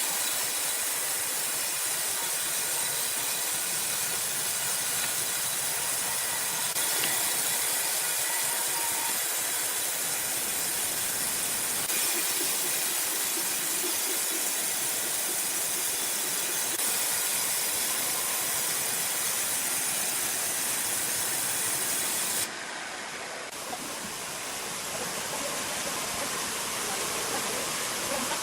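Sawmill machinery running with a steady loud hiss and a faint whine, changing abruptly about 22 seconds in.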